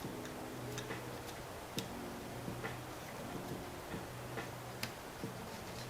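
Small, sharp, irregular clicks and taps of camera lens parts and a small tool being handled and fitted during reassembly of a zoom lens.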